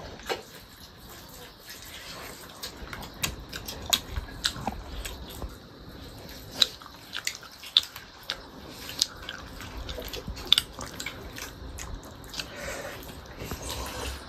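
Eating rice and meat curry by hand from a steel plate: scattered small clicks and taps of fingers on the plate, with chewing and mouth sounds.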